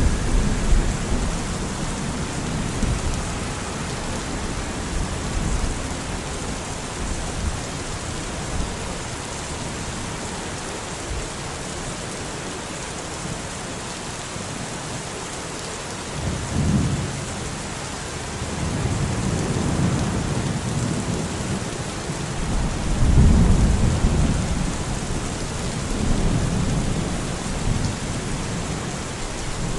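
Steady rain falling, with low rolling rumbles of thunder near the start and several more in the second half, the loudest about 23 seconds in.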